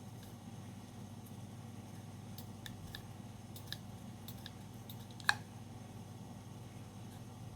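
Light clicks and taps of small parts of a metal spring-powered G17 replica pistol being handled during disassembly, with one sharper click about five seconds in, over a steady low hum.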